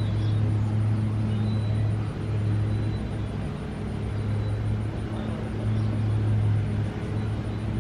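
A steady low engine hum, like a motor vehicle running nearby, with a few small dips in level.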